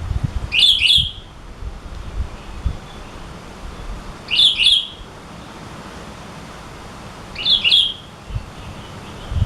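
Sooty-headed bulbul (kutilang) calling: three short call phrases, each about half a second long, spaced about three seconds apart.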